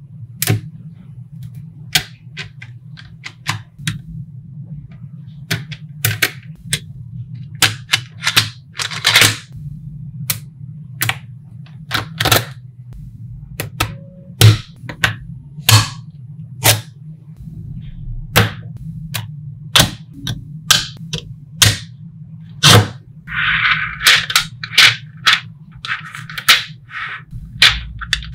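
Small neodymium magnet balls snapping and clicking against each other as a sheet of them is peeled off and pressed onto a cube. The clicks are sharp and irregular, some loud, over a steady low hum, with a short rattle of balls shifting together about two-thirds of the way in and again near the end.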